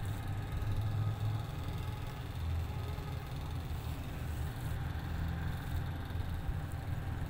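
A cat purring close to the microphone: a steady low rumble.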